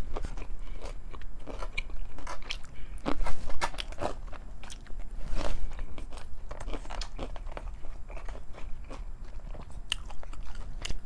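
Close-up eating sounds: biting and chewing of fried chicken fingers and fries, with irregular crunches and wet mouth noises.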